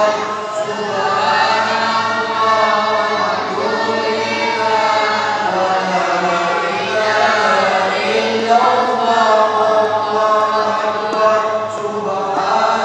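Mosque congregation chanting devotional phrases together in unison between tarawih prayer cycles, many men's voices sung in a slow, drawn-out melody.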